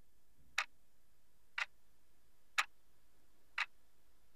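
Clock-tick sound effect counting down the seconds for a quiz answer: four short ticks, one a second.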